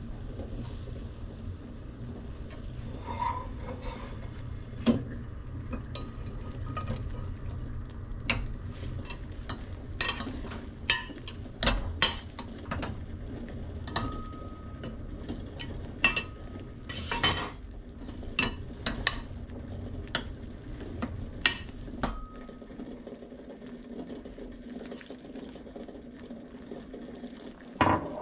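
Steamed potatoes being mashed with butter in a copper saucepan with a metal potato masher: repeated sharp knocks of metal against the pan, a few ringing briefly.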